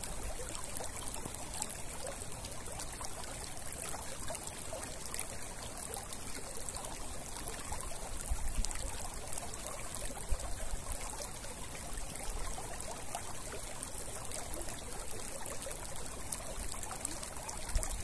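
Shallow channel of muddy water running steadily, a continuous trickling flow.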